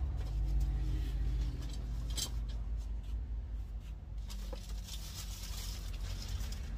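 Boxed and plastic-wrapped spare parts being rummaged through on a shelf: packaging rustles and a few sharp knocks, with the rustling strongest about four to six seconds in. A steady low hum runs underneath.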